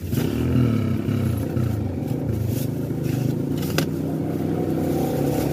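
Small motorcycle engine idling steadily, with one sharp crackle of a plastic bag being handled a little before the four-second mark.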